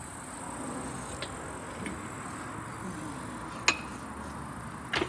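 Steady workshop background noise with a few light clicks, and one sharper click about three and a half seconds in.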